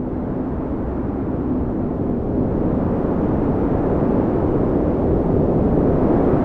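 Blizzard wind blowing hard, a steady low rush that swells a little after about two seconds.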